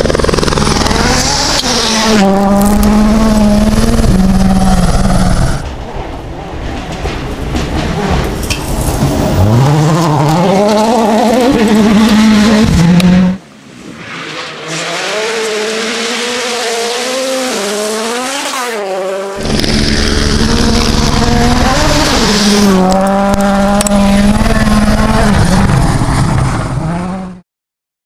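Rally cars on a gravel stage, driven at full throttle, in four short takes with abrupt cuts between them. The engine pitch climbs and drops repeatedly through hard revving and gear changes as each car approaches and passes. The sound stops just before the end.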